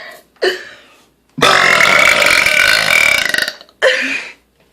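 A woman belching: one long, loud burp of about two seconds in the middle, with shorter sounds just before and after it.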